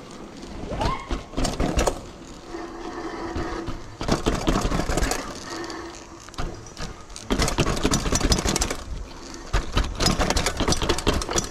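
Mountain bike juddering down stone steps and a rough dirt trail: bursts of rapid clattering and rattling from the frame, fork and chain as the wheels drop over the steps, with quieter rolling stretches in between.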